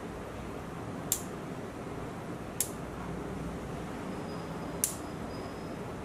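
Sharp clicks of small relays on a remote-controlled relay board switching lamps on and off, three times about one and a half to two seconds apart, over a steady low hiss.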